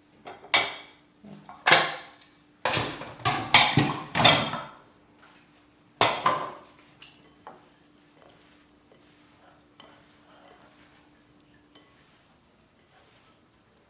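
Kitchen utensils and a mixing bowl clattering: a handful of sharp knocks and scrapes, clustered in the first six seconds, then only soft faint sounds of dough being worked by hand.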